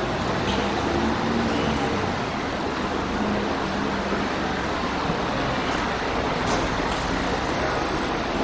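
Steady road-traffic noise from cars on a terminal drop-off road, idling and passing. A faint high whine comes in near the end.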